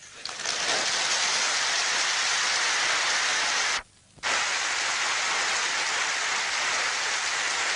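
A large hall audience applauding, a dense, even clatter of clapping on an old 1952 film soundtrack. It swells up within the first second, cuts out abruptly for about half a second in the middle, then resumes just as full.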